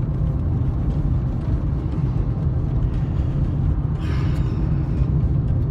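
Steady low rumble of a car being driven, heard from inside the cabin: engine and tyre noise on the road.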